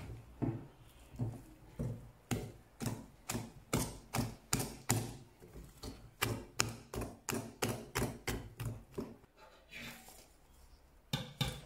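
Metal wire whisk beating thick cake batter in a glass bowl, with a sharp tap or click about two to three times a second as the wires hit the bowl. The beating stops about nine seconds in, and near the end come two or three louder knocks.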